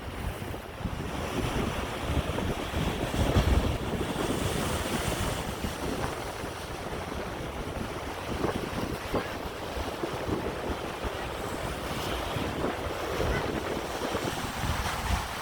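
Pacific Ocean surf washing and breaking, with wind buffeting the microphone; the loudest surge comes about three and a half seconds in.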